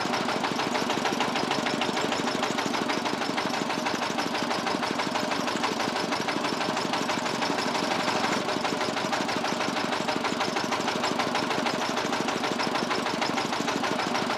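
Engine of a roadside sugarcane juice crusher running steadily at an even pace, a dense rapid chugging with no change in speed.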